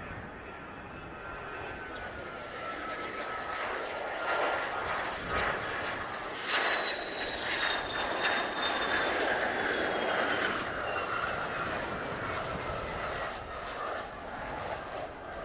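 Mitsubishi F-2 fighter's single turbofan engine as the jet flies past. The noise builds to its loudest in the middle, and the high whine slowly falls in pitch as the jet passes.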